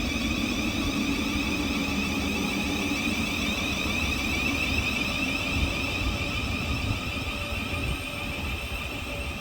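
A Southeastern Class 375 Electrostar electric multiple unit passing through the station: a steady high-pitched whine over a low rumble, easing off slightly near the end.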